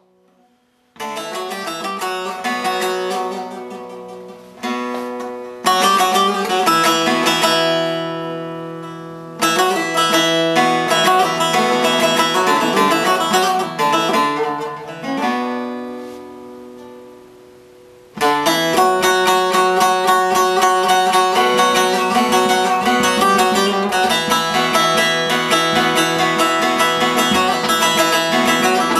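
Solo bağlama, the Turkish long-necked lute, played with a pick. It opens with free, slow phrases whose notes are left to ring and die away. About 18 seconds in it breaks into a steady, fast run of strummed notes.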